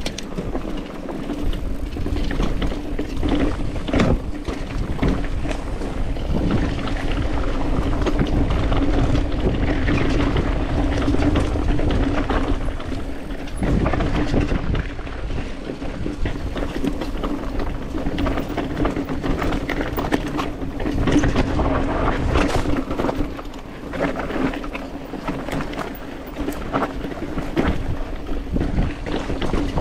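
Commencal Meta TR 29 mountain bike riding down a rough, rocky dirt trail: steady tyre and trail noise with frequent sharp knocks and rattles as the bike goes over stones and bumps, under a steady low hum.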